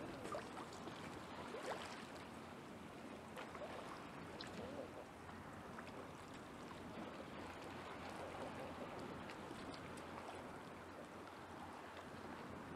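Gentle Baltic Sea waves lapping against a pier's pilings: a steady soft wash with faint small splashes throughout.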